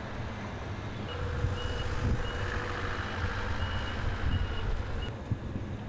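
Heavy vehicle's diesel engine running low and steady, with a high-pitched reversing alarm beeping in short pips from about a second in.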